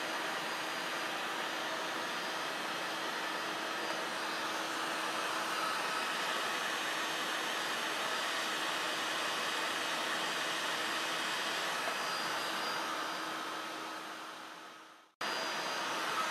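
Handheld electric heat gun blowing steadily with a low fan hum, aimed at the outboard's flywheel to heat it loose for removal. About fourteen seconds in it winds down and cuts off.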